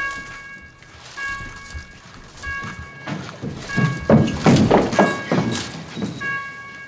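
Electronic alarm beeping a little over once a second, sounding for a detainee breach. Around the middle comes a louder burst of heavy thuds and scuffling noise.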